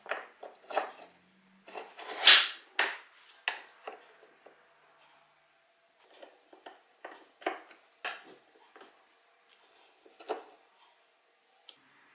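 Light metal clinks, knocks and scrapes as a hooked metal rod and a small metal plate are worked in a slot in a painted Land Rover door frame. The knocks come in two runs, the loudest about two seconds in, with a quieter pause before the second run.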